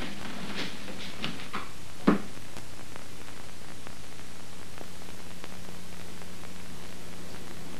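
A few soft knocks and one heavier thud in the first two seconds, then a steady low hum with hiss.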